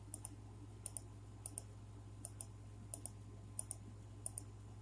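Computer mouse clicked over and over, about eight times, each a quick double tick of button press and release, roughly one every two-thirds of a second, over a steady low electrical hum.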